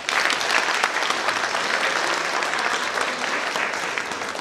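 Audience applauding: dense clapping from many hands that starts abruptly and begins to die away near the end.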